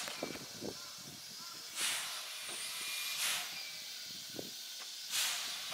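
JNR Class C11 steam locomotive at a standstill, letting off steam: three short bursts of hissing a second or two apart over a fainter steady hiss, with irregular low knocks.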